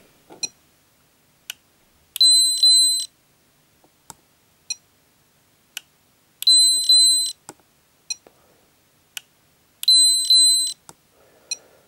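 Peak Atlas ESR70 ESR meter beeping its audible alert as it takes repeated readings on a capacitor: three high beeps of just under a second each, a few seconds apart, with scattered sharp clicks in between.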